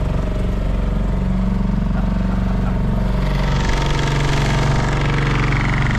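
Small boat's outboard motor running steadily under way, its pitch dropping slightly about halfway through.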